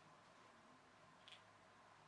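Near silence: room tone with a faint low hum, and one faint click past halfway as hard plastic parts are handled.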